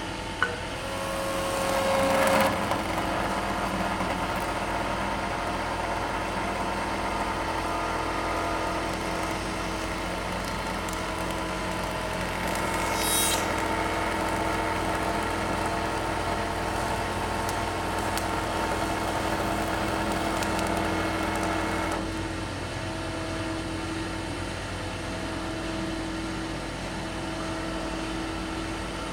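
CNC wood milling and turning lathe running, its motors humming steadily while the milling cutter cuts the turning wood, swelling louder about two seconds in. About three-quarters of the way through the cutting noise drops away and the machine runs on more quietly.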